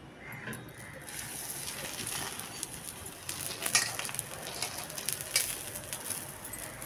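Paratha frying in oil on a hot tawa: a hiss of sizzling that starts about a second in and keeps going, with scattered pops and crackles.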